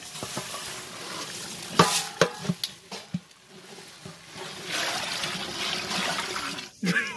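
Raw rice pouring into a large aluminium pot of beef stock with a hiss, then a few sharp knocks against the pot about two seconds in. From about five seconds in, water pours in with a steady splashing hiss while a wooden spatula stirs the rice.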